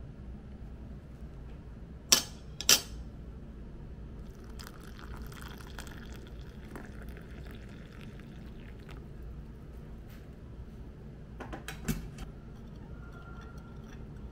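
Two sharp clicks about two seconds in, then hot water poured from a kettle into a glass cup for several seconds. Near the end a metal spoon clinks against the glass cup as the tea is stirred.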